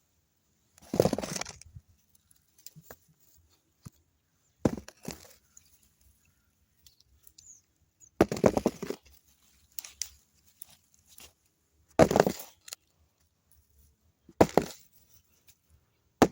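Short scraping, tearing bursts of soil and plants being worked by hand while potatoes are dug up, about six in all, spaced a few seconds apart.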